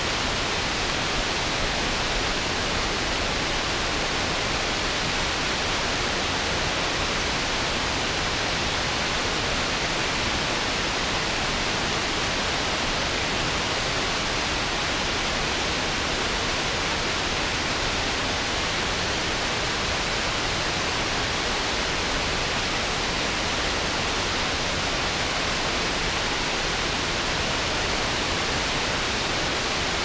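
Steady rush of a waterfall: river water pouring over a low dam and onto the rocks below.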